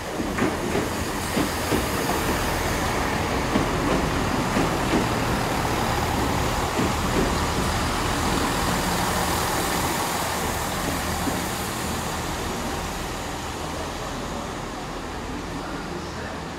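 GWR Class 166 diesel multiple unit running: a steady diesel drone and rail noise with a few knocks early on, slowly getting quieter over the last few seconds.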